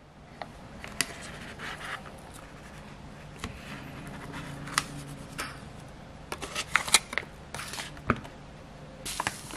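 Knife cutting through a block of butter in its foil-lined paper wrapper: the wrapper crinkles and the blade scrapes and taps the wooden table in scattered clicks.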